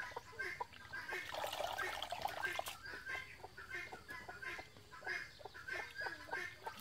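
Hands swishing and splashing mushrooms in a steel basin of water, with domestic fowl calling repeatedly.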